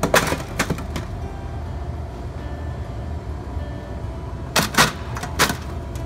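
Stainless steel food pans clinking and clattering as they are set into an ice-filled serving bar: a few sharp knocks near the start and another cluster near the end, over a steady low hum.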